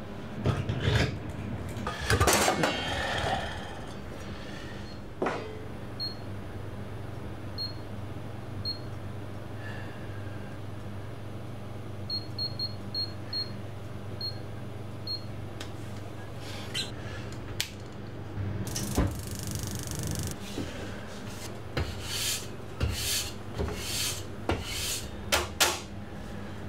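Steady low machine hum with scattered knocks and clatter of handling, and a few short, faint high beeps in the middle.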